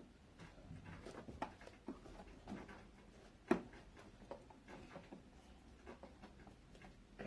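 Faint, scattered small clicks and taps of objects being handled, with one sharper click about three and a half seconds in.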